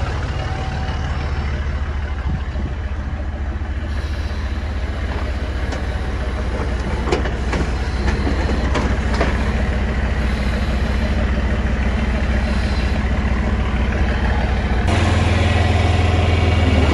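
Heavy diesel engine running steadily, with a few sharp knocks or clanks in the middle; it gets louder near the end.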